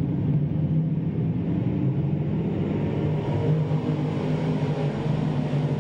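A pack of crate-engine dirt modified race cars running hard together under green, their engines blending into one steady, continuous drone.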